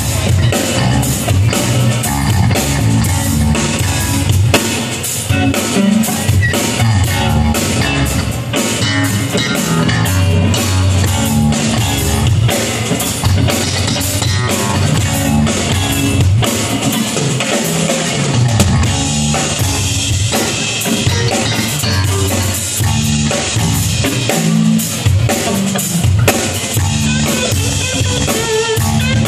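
Live rock band playing during a sound check: drum kit with kick and rimshots, bass and guitar.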